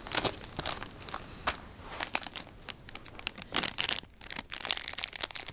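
Foil blind-bag packet crinkling and crackling in irregular bursts as it is handled and pulled at to open it.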